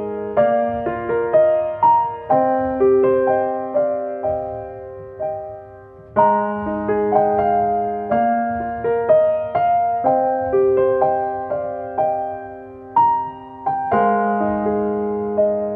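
Slow, gentle solo piano music: chords and melody notes struck and left to fade, with the harmony changing every couple of seconds.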